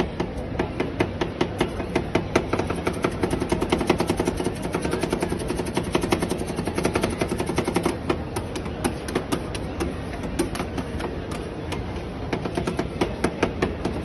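Two metal spatulas rapidly chopping and scraping on the frozen steel plate of a rolled ice cream counter, cutting chocolate into the cream base. Fast, steady metal clacking, several strikes a second.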